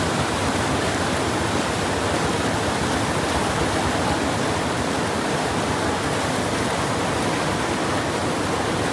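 Steady, loud rush of floodwater pouring through a sluice gate.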